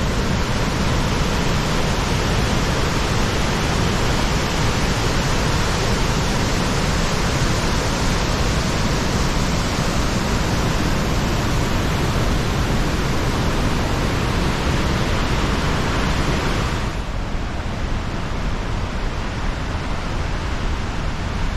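Coulonge Falls and its rapids rushing: a loud, steady, dense rush of falling water, which turns a little softer and duller about seventeen seconds in.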